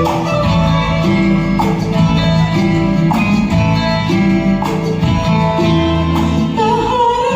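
Karaoke backing track playing an instrumental passage with plucked strings, with no singing.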